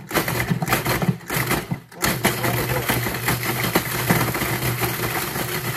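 Cuisinart food processor motor running with its blade chopping hard stale bread into crumbs, the pieces rattling against the plastic bowl. It pauses briefly just under two seconds in, then runs steadily.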